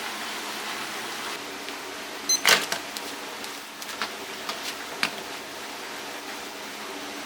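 Objects being handled: a short clatter, the loudest sound, about two and a half seconds in, then several light clicks and knocks. A steady hiss of background noise runs underneath.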